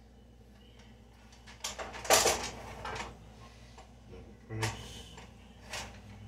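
Kitchen handling noises: a cluster of clatters and scrapes from a pan and utensils about two seconds in, then two shorter knocks near the end.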